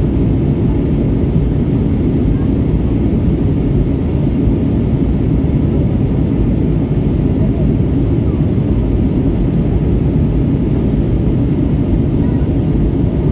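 Steady cabin noise of an airliner in flight, heard inside the cabin: an even, deep rumble of engines and rushing air.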